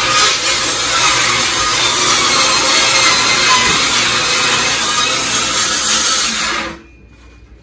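Ryobi table saw ripping a sheet of plywood, a loud steady blade-and-motor noise that cuts off suddenly near the end.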